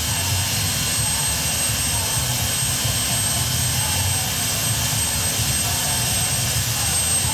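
UH-60 Black Hawk's gas turbine running steadily: a constant high-pitched whine over a rushing hiss, with a low rumble underneath.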